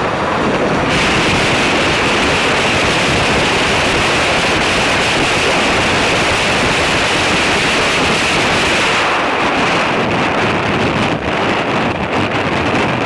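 Loud, steady rushing noise of a fast passenger train heard from its open coach door inside a rock tunnel: running noise of wheels on rails mixed with wind on the microphone, with a strong high hiss. About nine seconds in, the train leaves the tunnel and the noise thins to uneven wind buffeting.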